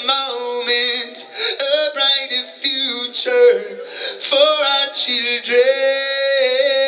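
A man singing live into a microphone: short sung phrases, then a long held note near the end, over a steady lower note sounding underneath.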